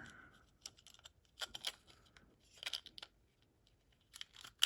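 Small metallic clicks and rattles from a pin-tumbler lock and its key being handled, coming in three brief clusters.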